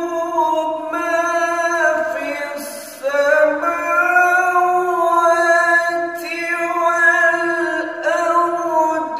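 A man's solo melodic Quran recitation (tilawah), holding long, ornamented notes in one voice, with a short breath break about three seconds in.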